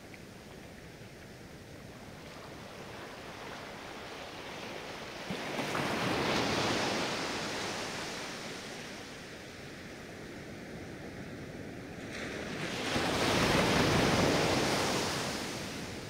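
Small sea waves breaking on a sandy beach and washing up the shore, in two surges. Each swells and dies away; the second, near the end, is the louder.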